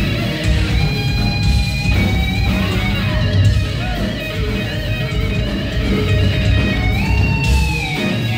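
Live electric guitar solo in a heavy metal style, with held lead notes: one sustained about a second in, and another bent up and held near the end. A heavy low end runs underneath throughout.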